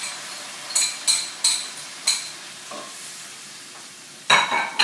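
Chicken and broth sizzling in a hot pan, with a utensil clinking against the pan several times, the loudest clinks near the end.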